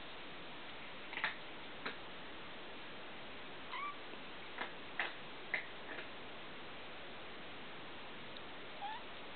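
Young kitten mewing in short, high-pitched squeaks, about eight times at irregular moments, some of them rising in pitch, over a steady hiss.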